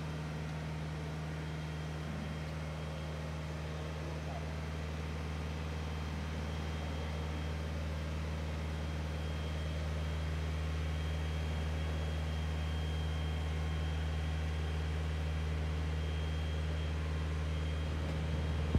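Steady low engine drone, like a vehicle or machine idling, with a faint high whine held over it; it grows slightly louder about halfway through.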